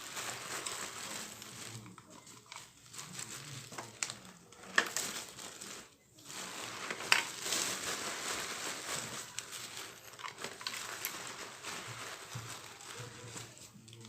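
Plastic packaging crinkling and rustling as it is handled and unwrapped by hand, with a couple of sharp snaps about five and seven seconds in and a brief lull just before the second.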